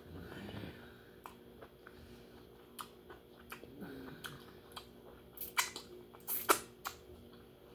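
Close-miked eating of lobster: soft chewing and mouth sounds with scattered sharp clicks, a few louder ones in a cluster near the end.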